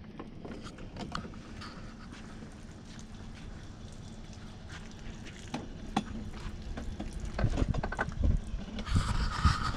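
Outdoor ambience with a low rumble and a steady low hum, and a scatter of knocks from gear being handled in an aluminium fishing boat on its trailer.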